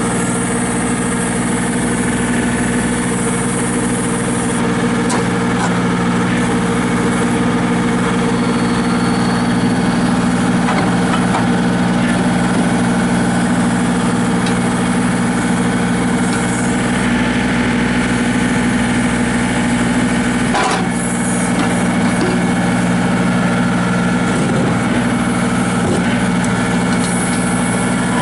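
John Deere 2032R compact tractor's three-cylinder diesel engine running at a steady speed.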